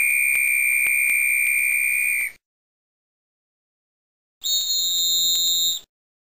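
A whistle blown in two long blasts. The first is a steady high tone lasting a little over two seconds. The second, shorter and higher-pitched, comes about four and a half seconds in.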